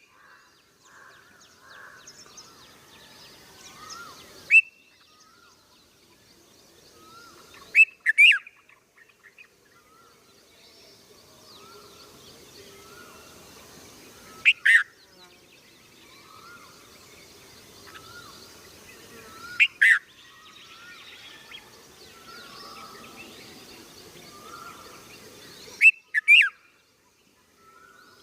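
Red-vented bulbul calling: short, sharp notes every few seconds, some in quick pairs, over fainter chirping in the background.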